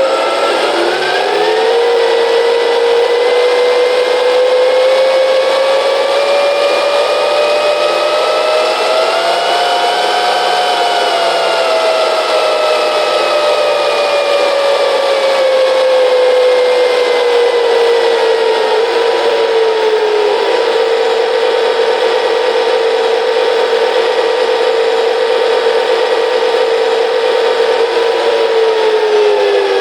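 RC tank sound module playing a simulated M1 Abrams gas-turbine engine: a turbine whine over a steady rushing hiss that spools up about a second in, climbs in pitch to a peak around ten seconds in, then eases back to a steady idle whine that starts winding down near the end.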